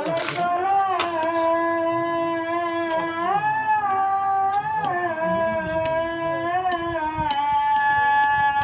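Background music: a slow melody of long held notes that shift in pitch every second or two.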